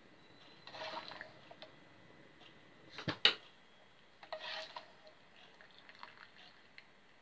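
Cooked spaghetti being lifted with a metal spoon from a saucepan of its cooking water: water sloshes and drips off it twice, about a second in and again near the middle. A sharp clink of the utensil against the pan about three seconds in is the loudest sound.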